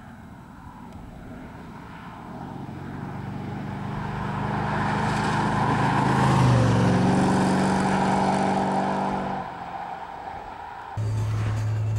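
A 1981 Chevrolet Corvette C3's 350 V8 approaches and drives past, its engine note growing louder and dropping in pitch as it passes about six and a half seconds in, then fading away. About a second before the end the sound cuts abruptly to a louder, steady drone.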